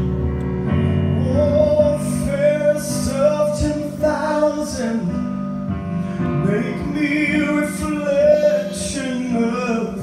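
A man singing a slow gospel song into a microphone over live instrumental accompaniment. The voice comes in about a second and a half in and holds long notes.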